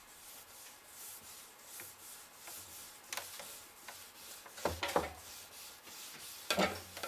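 Bare hand rubbing a beeswax and coconut oil mixture into the face of a thick wooden cutting board: a soft rubbing swish in repeated strokes. A few louder knocks come in the second half as the board is handled.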